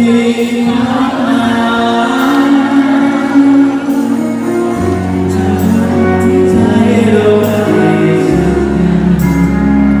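A slow song with singing over held bass notes that shift about five seconds in and again near the end.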